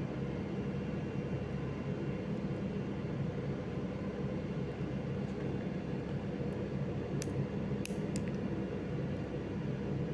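Steady background machine hum and hiss, like room air conditioning, with three faint light clicks about seven to eight seconds in as CAT6 wires are worked into an RJ45 connector.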